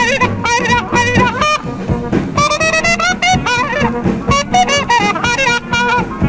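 Dixieland jazz band playing live: horns run quick lines with a wavering vibrato over piano and string bass.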